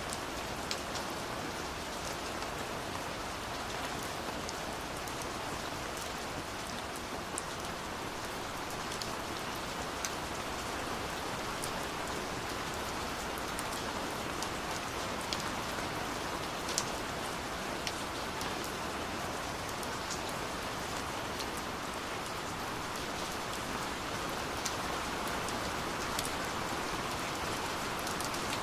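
Steady rain falling, a constant hiss with scattered sharp drip ticks of individual drops striking a surface.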